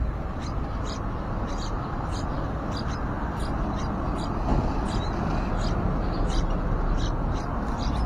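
Nestling songbirds begging in the nest with short, high cheeps repeated about twice a second, over a steady low rushing noise.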